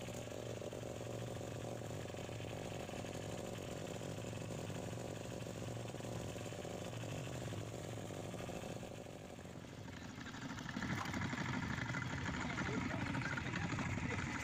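Fishing boat's engine running steadily with a low hum. About ten seconds in, the sound dips and then comes back louder and rougher.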